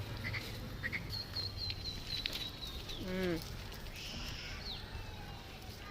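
A single short wavering bleat from a sheep or goat of the farm flock about three seconds in, with faint high chirping before it.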